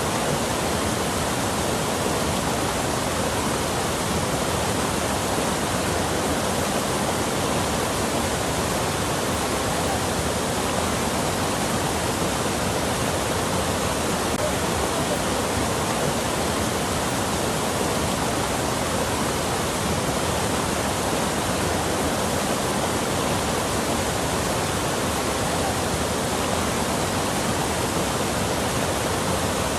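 Steady rushing water, a dense continuous wash of noise that does not change.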